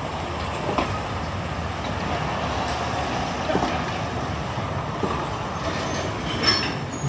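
Open wagons of a heritage train rolling slowly past a station platform: a steady rumble of wheels on rail with a few clicks and clanks, and a brief high wheel squeal about six and a half seconds in.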